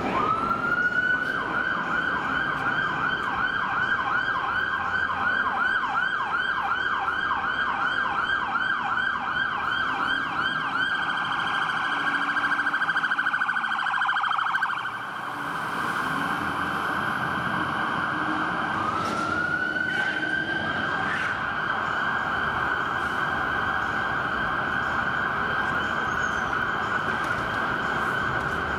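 Electronic siren of a Scania P410 turntable-ladder fire engine on a blue-light run. It winds up and yelps rapidly, about three sweeps a second, dies away briefly about halfway, then winds up again and keeps sounding.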